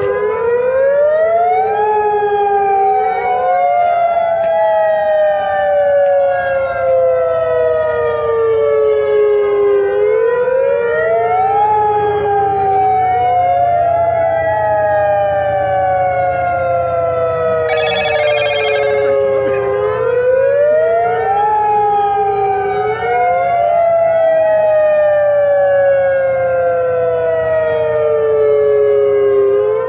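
Several outdoor warning sirens wailing out of step with one another: each rises quickly over about a second, then falls slowly for about eight seconds, over and over. Tsunami warning sirens sounding after the earthquake.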